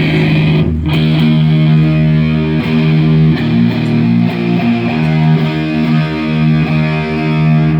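Distorted electric guitar played loud through an amplifier: sustained heavy notes with repeated picked attacks, cut off sharply at the end.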